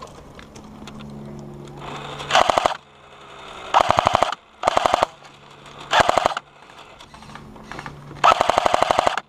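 Airsoft electric light machine gun firing five short full-auto bursts of rapid clicks, the longest near the end, with a low mechanical hum between bursts.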